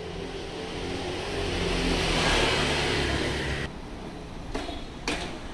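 A motor vehicle passing, its engine and road noise swelling to a peak about two seconds in, then dropping off quickly. A few light knocks follow near the end.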